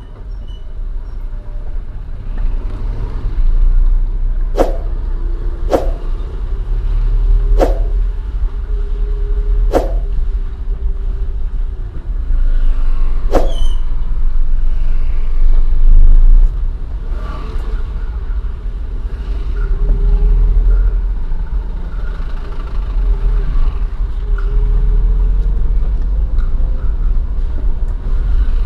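Daihatsu Xenia VVT-i on its stock exhaust, running with a steady low rumble and an engine tone that drifts up and down. About five sharp clicks or knocks come in the first half.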